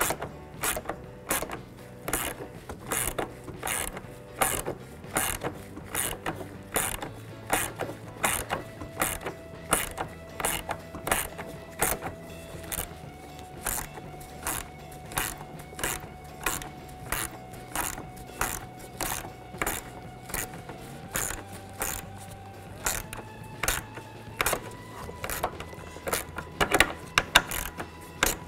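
Hand ratchet with a 10 mm socket clicking steadily, about two clicks a second, as a horn mounting bolt is run in.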